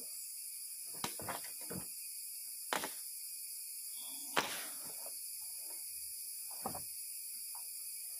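Rainforest ambience: a steady high-pitched hiss, typical of tropical forest insects, broken by a handful of short knocks and rustles close by, the loudest about four and a half seconds in.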